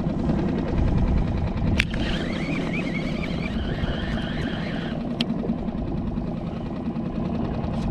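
Small outboard motor of a one-person skiff running steadily at low speed, with two sharp clicks, one about two seconds in and another about five seconds in.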